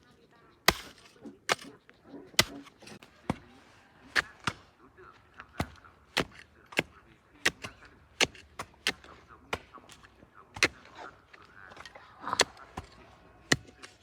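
Repeated sharp strikes of a hand tool hitting hard material, irregular, about one to two a second.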